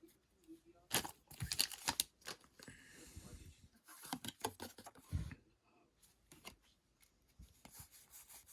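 Foil Pokémon booster pack wrapper being torn open and crinkled by hand: bursts of crackling and rustling, with a longer stretch of tearing about three seconds in.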